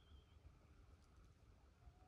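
Near silence: faint outdoor quiet with a low rumble, and one faint whistled note near the end.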